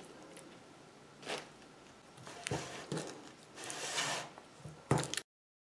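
A metal spatula working wet clay in a stainless steel bowl: a few short scrapes and squelches, a longer scrape about four seconds in, and a couple of sharp knocks near the end. The sound then cuts off suddenly.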